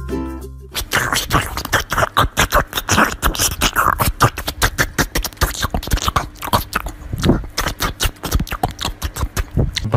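Small white dog biting and chewing a slice of watermelon: rapid, irregular crunches, several a second, close to the microphone. A short tinkling music tune breaks off within the first second.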